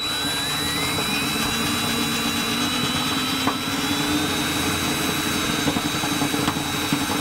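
Power drill running steadily with a 5/16-inch bit, enlarging a pilot hole through the pickup's bed floor. Its whine climbs in pitch over the first few seconds, then holds steady.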